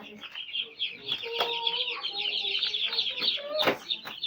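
A crowd of baby chicks peeping nonstop in a dense chorus of short, high cheeps, with a couple of sharp knocks.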